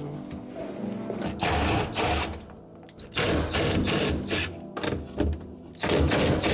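Background music with short bursts of mechanical rattling and clatter from work going on, several times in a row.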